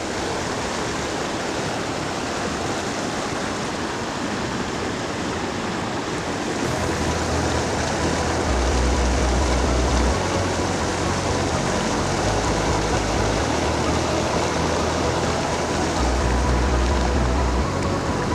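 Small mountain creek rushing steadily over a rocky cascade. In the second half a low rumble comes and goes on top of the water.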